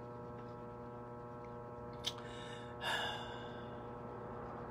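A man's audible breath, a quick sigh-like intake about three seconds in, with a short click just before it, over a steady low background hum.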